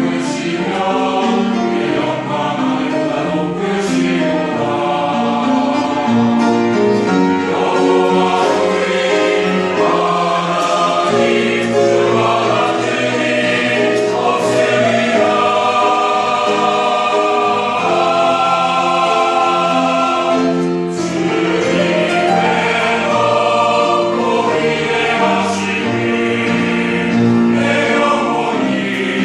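Church choir singing a praise anthem, many voices in harmony on long held notes.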